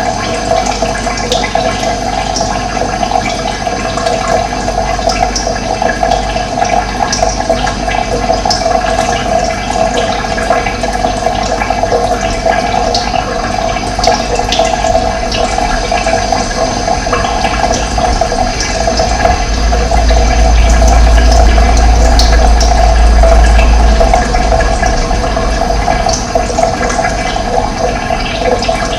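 Steady rush of running water, with scattered short bird chirps high above it. A low rumble swells and fades about two-thirds of the way through.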